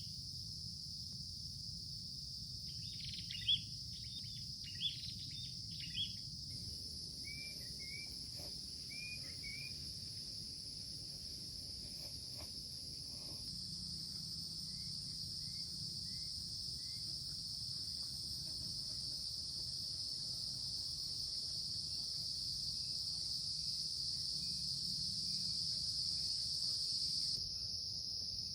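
Steady high-pitched insect chorus, crickets among them, in a tropical forest, growing a little louder later on. Small birds give several runs of short chirps over it, and there are a few sharp clicks in the first seconds.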